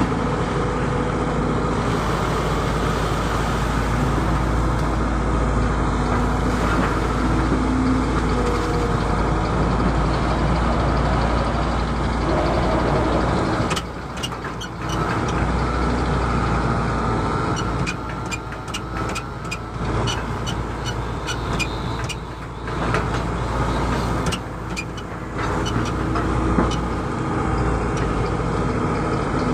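Hydraulic excavator's diesel engine running steadily under load. About halfway through the level dips for a moment, and after that comes a run of sharp clicks and knocks from the machine at work.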